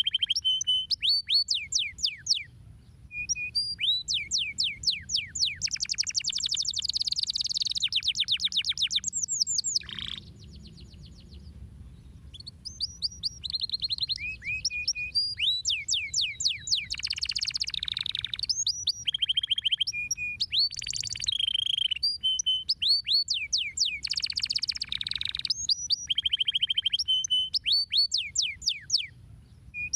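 Domestic canary singing: fast trills of repeated falling whistles mixed with short warbled phrases, with a brief lull about ten seconds in.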